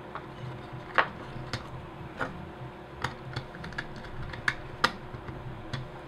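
Irregular light clicks and taps from hands working small wire ends into a controller's screw terminal block with a small screwdriver, about nine in all, the loudest about a second in.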